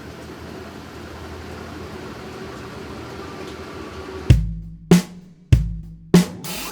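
A top-loading washing machine running with a steady churning hum through its wash cycle. About four seconds in, background music cuts in with four heavy drum hits, which become the loudest sound.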